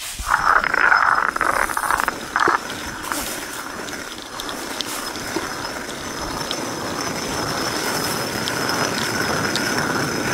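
Hand-turned stone quern grinding wheat: the upper millstone rubbing round on the lower one in a steady gritty rumble with small sharp clicks, louder for the first two seconds or so.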